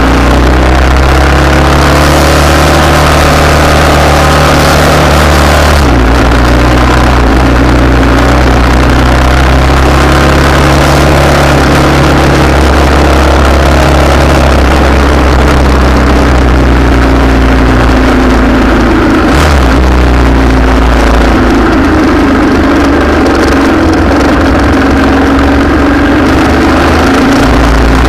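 Vehicle engines idling close by, a loud steady low engine note with other engine notes wavering in pitch above it; the low note shifts about six seconds in and again near twenty seconds.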